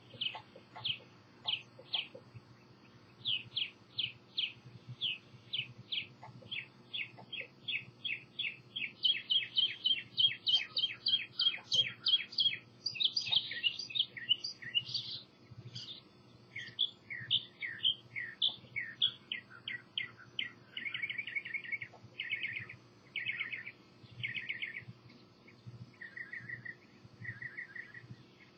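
Songbirds singing: a run of sharp downslurred chirps, several a second, with several birds overlapping in the middle, then short buzzy trills in the second half.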